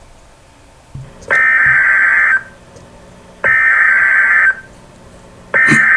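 Emergency Alert System SAME header: three bursts of harsh, buzzing digital data tones, each about a second long and about a second apart. The third begins near the end and carries on past it.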